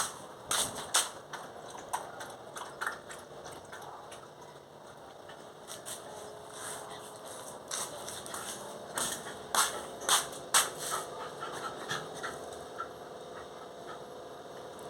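A dog lapping water from a bowl in scattered sharp laps, busiest about two-thirds of the way through. A faint steady motor hum comes in about halfway.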